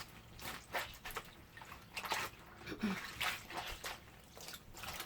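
Clothes being washed by hand in a tub of water: irregular splashes and sloshes, roughly two a second, as the wet garments are worked and squeezed.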